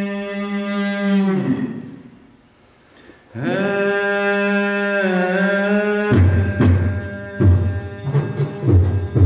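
Live-looped voice played through DIY transducer speakers. A held vocal drone rich in overtones drops in pitch and fades about a second and a half in. After a short lull a second held tone starts and bends around the middle, and about six seconds in a digital beat of deep bass thumps and percussive hits starts under it.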